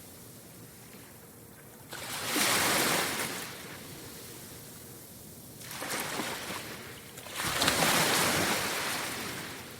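Ocean waves breaking on a shore: a big crash about two seconds in, a smaller one around six seconds, and another big crash at about seven and a half seconds that washes out slowly, with a low steady surf hiss between them.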